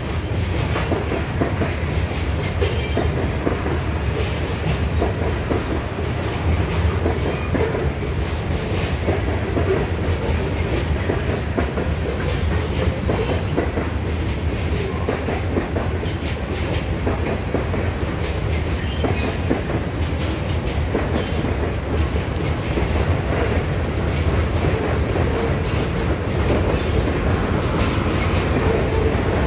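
Freight cars of a mixed manifest train (covered hoppers, tank cars, boxcars) rolling steadily past: a continuous low rumble of steel wheels on rail with frequent clickety-clack from wheels crossing rail joints.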